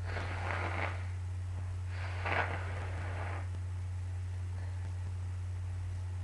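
A congested nose blown twice, the second blow longer and louder than the first, over a steady low electrical hum.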